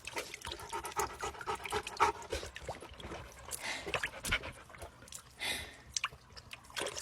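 A Labrador retriever drinking water in its own odd way: a run of quick, irregular wet slaps and slurps.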